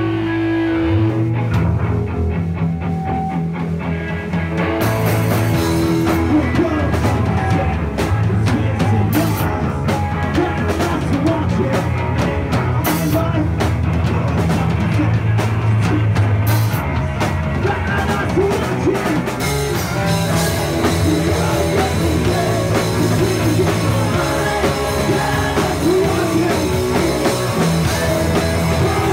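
A rock band playing live in a basement: electric guitars and bass, with a drum kit and cymbals coming in about five seconds in and then playing steadily.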